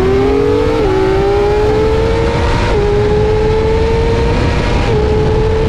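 High-revving vehicle engine accelerating hard through the gears: the pitch climbs steadily and drops back at each upshift, three times, about a second in, near the middle and near the end.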